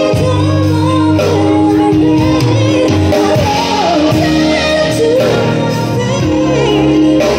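Live pop band playing, with a woman singing lead into a microphone over electric guitar, bass, keyboard and drums.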